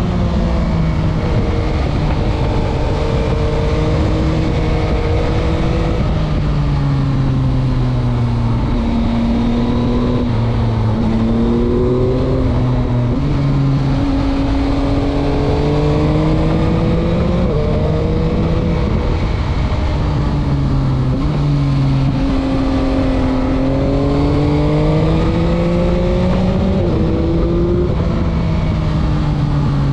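Yamaha MT-09 (2021) 889 cc inline-three engine heard from the rider's chest-mounted camera, its pitch rising and falling with the throttle through corners, with a few abrupt jumps in pitch as the rider shifts gears, over steady wind and road noise.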